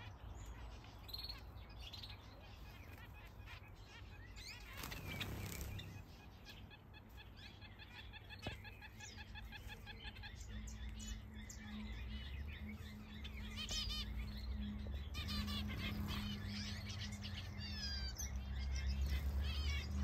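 A mixed flock of small aviary finches, zebra finches and Java sparrows among them, chirping and calling in short repeated notes and trills. A low steady hum comes in about halfway through and grows louder toward the end.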